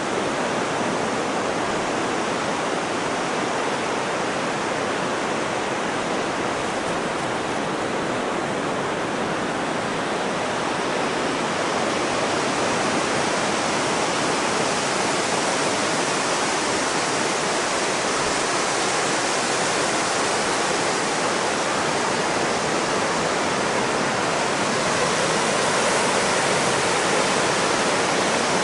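Steady rushing of wind and surf on an open sandy beach, growing slightly louder in the second half.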